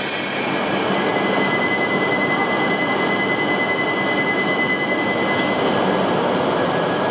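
Tohoku Shinkansen train pulling out of the platform: a steady loud rush of running noise with a high whine held from about a second in until shortly before the end.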